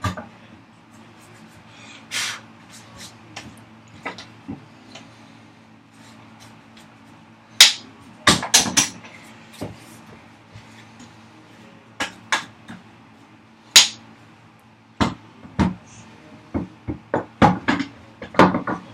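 Irregular knocks and clunks as a wooden vise chop is handled and test-fitted onto a workbench vise. They are single sharp hits with quiet gaps between them, and some come in quick runs.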